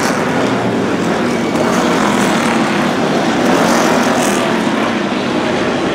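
NASCAR Cup stock cars' V8 engines running steadily as a pack goes through a turn on a wet road course, a continuous dense drone.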